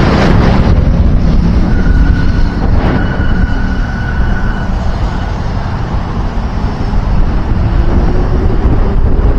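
Heavy wind buffeting the microphone over a steady low road rumble, as from travelling at speed on a highway, with a faint thin whine for a few seconds about two seconds in.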